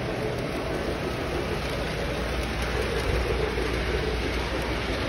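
Lionel O-gauge model trains running around a display layout: a steady rumble and whir of their motors and wheels on the track.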